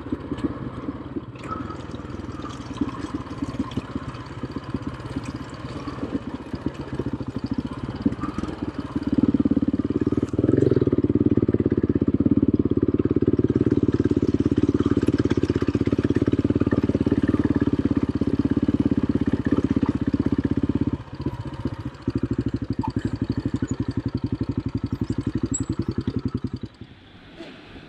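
Quad bike (ATV) engine running on a rough trail, its throttle rising about a third of the way in and held steady under load. It dips briefly, picks up again, then falls away just before the end.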